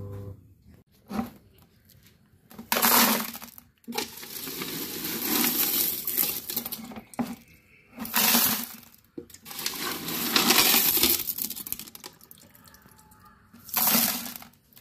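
Coloured glass pebbles and aquarium gravel clattering and clinking against each other and the glass tank, in several bursts of a second or more as they are stirred and scooped by hand.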